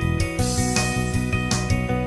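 A mobile phone ringtone playing: a melody with a plucked, guitar-like sound over a steady rhythm, which changes to a new phrase about half a second in.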